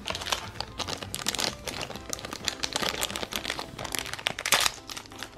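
Thin clear plastic toy bag crinkling irregularly as fingers work it open to pull out a small plastic keychain.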